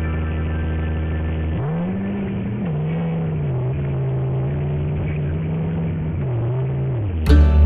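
A bus's diesel engine, after a steady hum, revs up from about a second and a half in as the bus pulls away. The pitch climbs, drops back at a gear change and then rises and falls unevenly.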